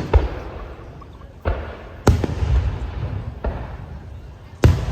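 Aerial fireworks shells bursting, about five loud bangs a second or so apart, each trailing off in a low rumble.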